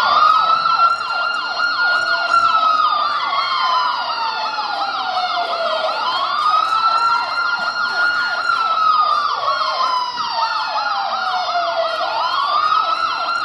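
Emergency-vehicle siren sound effect: a slow wail rising and falling about every six seconds, with a fast warbling yelp of several sweeps a second on top. It cuts off suddenly near the end.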